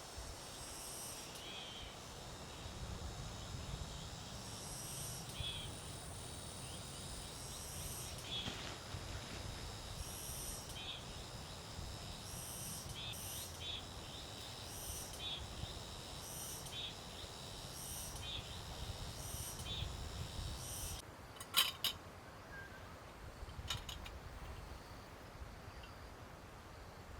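Short, high chirping calls repeating about once a second over a low steady rumble, with a few sharp clicks about three-quarters of the way through.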